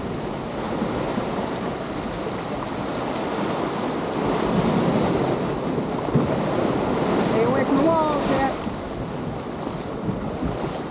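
Ocean waves surging up the beach against a seawall, with wind buffeting the microphone; the wash grows louder about four seconds in as a bigger wave comes through.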